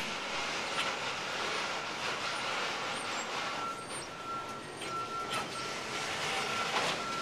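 Container wagons rolling slowly on rails during shunting: a steady rumble of wheels on track with a thin, high wheel squeal coming and going, and a few sharp clicks as wheels cross rail joints.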